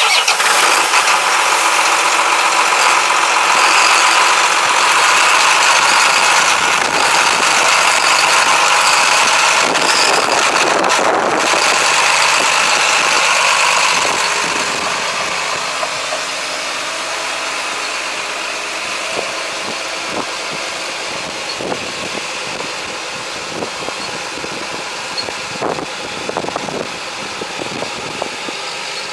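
The six-cylinder diesel engine of a 2005 John Deere 8320 tractor running steadily just after start-up, getting somewhat quieter about halfway through as the tractor moves off.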